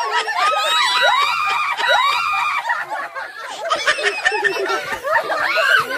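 Several women shrieking and laughing at once, high squeals and giggles overlapping, as a group reacts to someone reaching into a mystery box.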